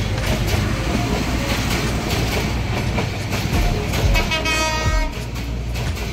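Bangladesh Railway intercity passenger coaches passing close by: a steady rumble with wheels clattering over the rail joints. A short horn sounds about four seconds in and lasts under a second.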